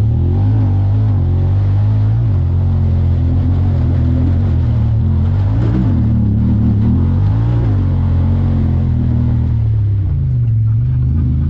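Honda Talon 1000R side-by-side's parallel-twin engine running under load, its revs rising and falling as the throttle is worked, dipping and climbing again a few times.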